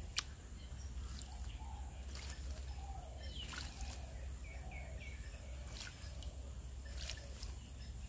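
Oriental magpie-robin bathing in a bird bath: about five short bursts of splashing water as it dips and shakes its wings. Faint bird chirps behind.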